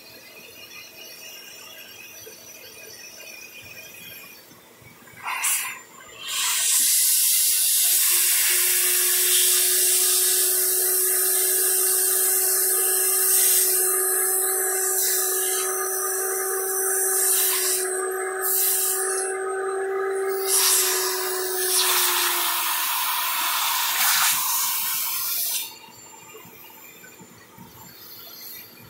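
Vacuum cleaner suction: a loud rush of air through the hose with a steady tone underneath. It starts about six seconds in, just after a brief burst, and cuts off sharply a few seconds before the end.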